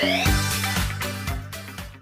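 Background music with a steady dance beat and bass.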